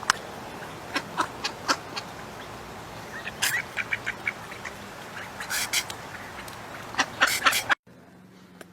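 An animal making a series of short, sharp sneezes in several clusters, with a quick run of them in the middle; the sound cuts off abruptly near the end.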